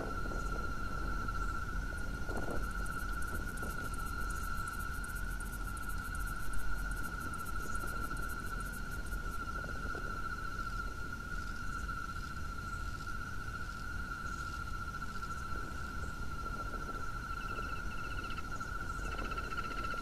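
Steady high-pitched trilling from calling animals, unbroken throughout, with a fast high ticking buzz over it during the first half and a low rumble beneath.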